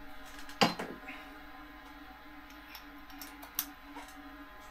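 Clicks and taps of tools and small parts being handled during RC truck repair: a sharp click about half a second in, another about three and a half seconds in, and scattered lighter ticks.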